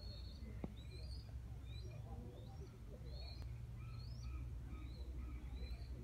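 Amur falcon calling: short, high, rising chirps repeated about twice a second, with fainter lower bird calls joining in the second half, over a steady low rumble.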